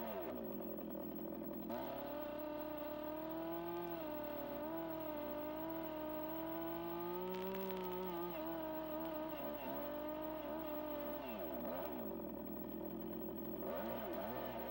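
Chainsaw running under load while plunge-cutting the sides of a mortise in a squared log. Its pitch dips and rises as the bar bites into the wood and is worked along the cut, with sharper revs near the start and again near the end.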